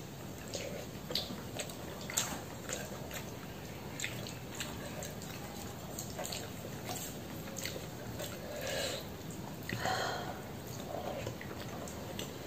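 Close-up eating sounds: chewing and small wet mouth clicks while rice and vegetable curry are mixed and eaten by hand.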